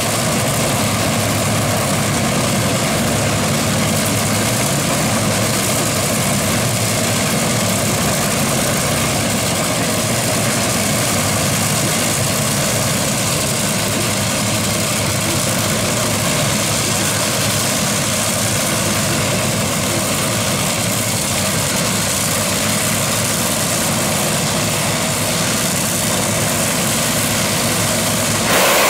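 Top Fuel dragster engines idling: supercharged, nitromethane-burning V8s running loud and steady.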